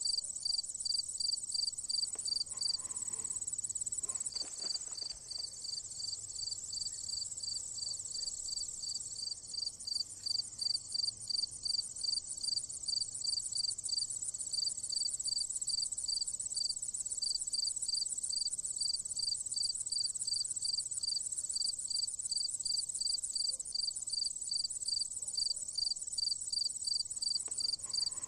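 Insect chorus from the grass: a steady high trill overlaid with a regular high chirp about two to three times a second.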